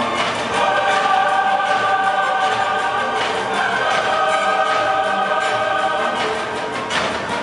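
Show music with a choir singing long, held chords that change every second or two.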